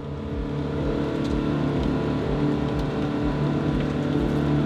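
Engine and driving noise of an off-road utility vehicle running along a rough dirt track, heard from inside the cab, growing louder over the first second and then holding steady.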